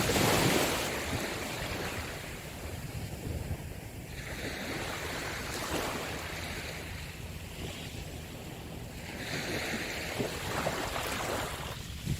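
Ocean waves breaking and washing on a shore, with a surge at the start and further swells a few seconds apart, over a steady rumble of wind on the microphone.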